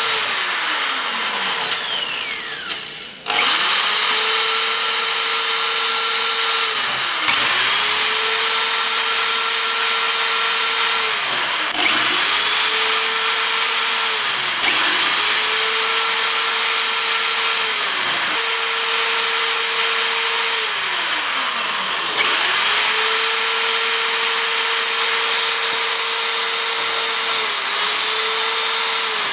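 Electric drill boring through the glass screen of a Ulefone Metal phone, the bit grinding with a steady hiss. The motor repeatedly winds down and picks up speed again every few seconds, nearly stopping once about three seconds in.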